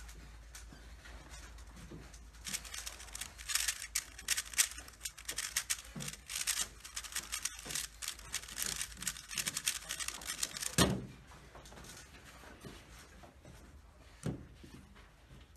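Plastic 3x3 puzzle cube turned fast by hand: a dense run of clicking and clacking turns lasting about eight seconds, ending in a thump, with one more softer knock a few seconds later.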